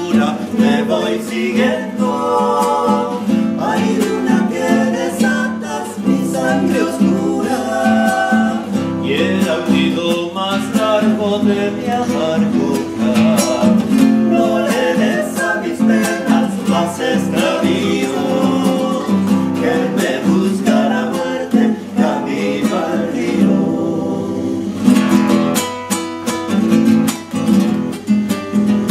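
Acoustic guitar, strummed and plucked, accompanying several voices singing together. Near the end the singing stops and the guitar plays on alone.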